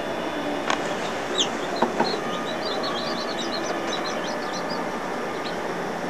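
Newly hatched domestic chicken chicks peeping: many short, high cheeps in quick succession over a steady hiss, with a few sharp clicks between about one and two seconds in.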